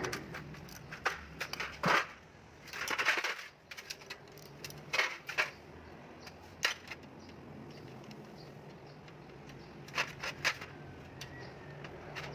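Metal tools and starter-motor parts clinking and knocking in irregular, separate clicks, with a short scraping rasp about three seconds in.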